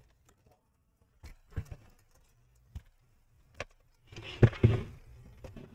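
Handling noise as a computer case is turned over on a table: a few faint separate knocks and taps, then a louder cluster of bumps and rubbing about four seconds in.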